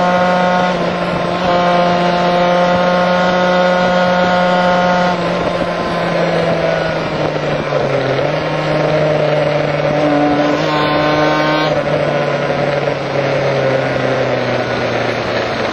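Kawasaki KH500's two-stroke triple engine running under way, heard on board over wind rush. The engine note holds steady, then falls in pitch about five seconds in and again near eight seconds as the bike works through the curves.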